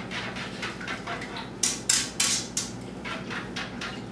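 Metal ball-tipped whisk scraping and clicking against the bottom of a nonstick Teflon skillet while stirring a sauce, in quick repeated strokes, the loudest few about two seconds in.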